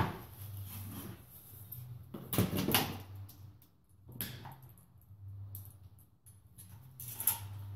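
A few short knocks and rattles, like tools or parts being handled, over a steady low hum.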